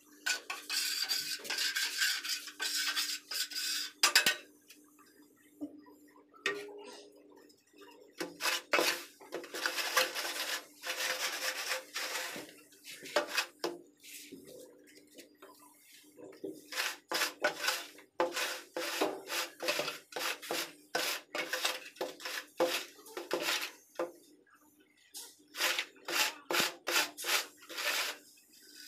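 Hands scraping and smoothing a loose sand bed laid as the base for floor tiles, in runs of short scraping strokes with pauses between them.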